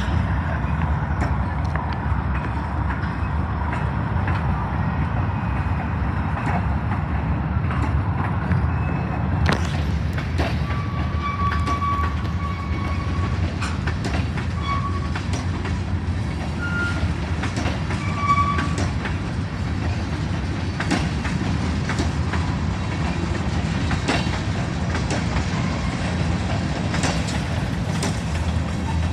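Train rolling along the track with a steady low rumble and frequent irregular clicks. A few short high-pitched squeals come through in the middle.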